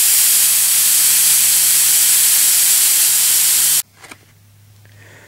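Compressed air hissing out of a hand-held air blow gun, releasing the pressure from a pump-sprayer tank charged by a refrigerator compressor. The hiss cuts off suddenly about four seconds in, leaving a faint low hum.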